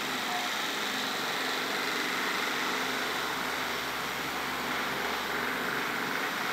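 Electric fan running with a steady whir.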